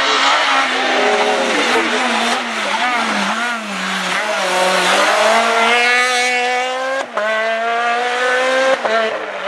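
Rally car engine revving hard at full throttle. The pitch wavers and dips through the first few seconds, climbs steadily, breaks off sharply about seven seconds in at a gear change, then climbs again and drops near the end.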